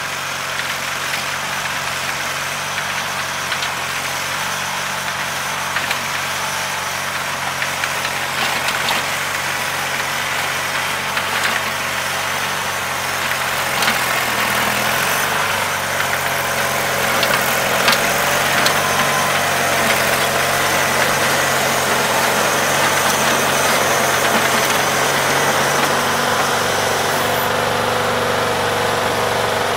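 A John Deere 316 garden tractor's Onan B43 twin-cylinder engine runs steadily. It grows louder as the tractor drives up close, with a few sharp clicks and knocks. Near the end the engine note shifts.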